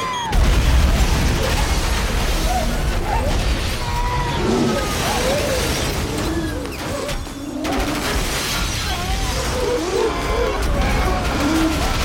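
Film soundtrack of a slow-motion explosion: a heavy boom a moment in, then a long deep rumble with debris and shattering, with drawn-out wavering tones and music layered over it.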